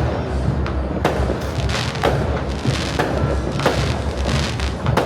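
Aerial fireworks bursting in quick succession, about two sharp bangs a second over a continuous low rumble of distant booms.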